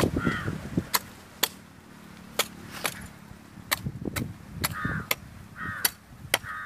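Machete chopping into a tender green coconut: sharp knocks, about ten of them at an irregular pace, as the blade hacks the husk and shell open.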